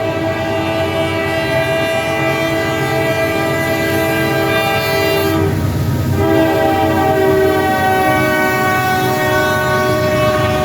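Diesel locomotive air horn sounding a long chord, breaking off for about a second midway and then sounding again, over the low rumble of a passing train.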